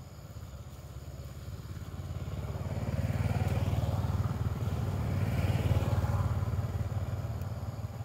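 A motorcycle passing by: its engine grows steadily louder over the first few seconds, peaks in the middle and fades toward the end.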